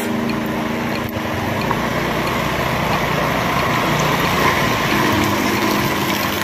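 A motorcycle engine runs with a steady low hum at low speed, under a constant hiss of rain and tyres on a wet road.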